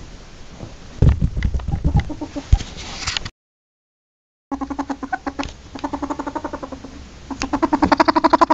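Ferret dooking: a fast run of soft pitched clucks, about eight a second, starting about four and a half seconds in and growing louder near the end. Before it come irregular knocks and scuffling thumps, then about a second of dead silence.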